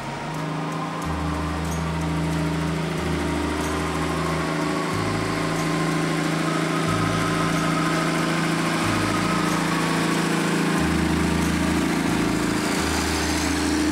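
Engine of a 1963 Morris FFK-140 truck running as the truck drives past, growing louder as it comes closer.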